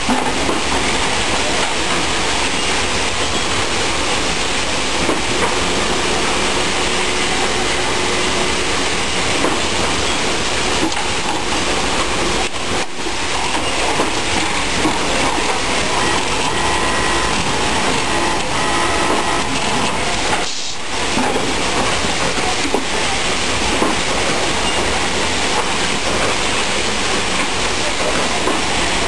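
Steady, dense mechanical din of a sewing factory floor, with an automatic sewing unit and other machinery running; the sound drops out briefly twice.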